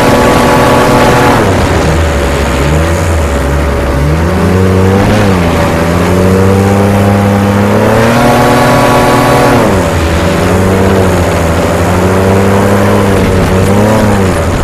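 Racing hovercraft engine running hard, its revs rising and falling as the throttle is worked: it eases off briefly about every four to five seconds, then climbs back up.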